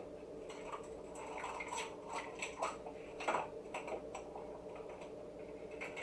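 Scattered light clicks and clatter of a ring of measuring spoons and a small bottle being picked up and handled on the counter, the sharpest click about three seconds in, over a faint steady hum.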